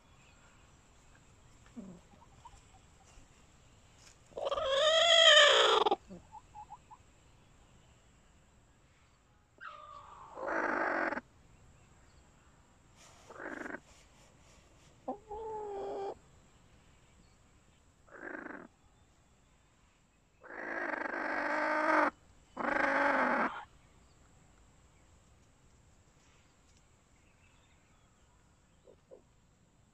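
Chickens calling: about seven separate drawn-out pitched calls spread over some twenty seconds, the loudest about five seconds in.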